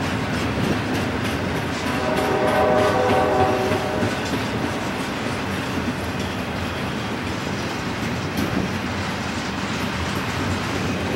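Double-stack intermodal freight cars rolling past, wheels rumbling and clicking over the rail joints. About two seconds in, a train horn sounds a steady chord for roughly two seconds.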